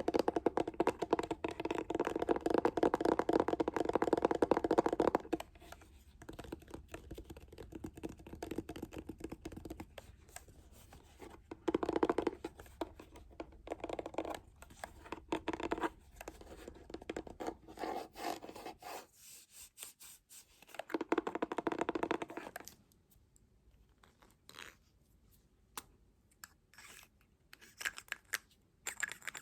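Close-miked scratching and scraping of an ASMR trigger. It is dense and continuous for the first five seconds, then comes in shorter spells, and ends with sparse light clicks near the end.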